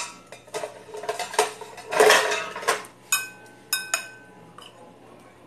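Utensils clinking and scraping against a bowl as fried instant noodles are stirred, with a sharp click at the start, a longer scrape about two seconds in, and ringing metallic taps from about three seconds on.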